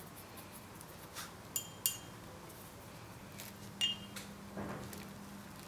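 Three light clinks of small hard tools, each with a brief ring: two close together just under two seconds in and one about four seconds in, among a few softer ticks from handling.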